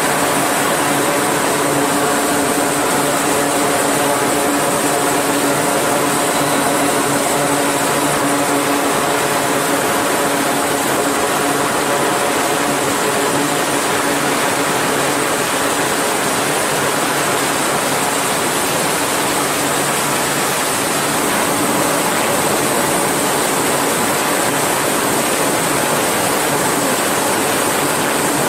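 E-2 Hawkeye's twin turboprop engines running steadily on the flight deck, a loud propeller drone made of several steady tones over a broad hiss. The propeller tones weaken somewhat about halfway through.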